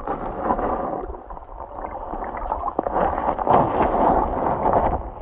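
Muffled gurgling and sloshing of lake water heard from a camera held underwater, with a few soft knocks, growing louder about three seconds in.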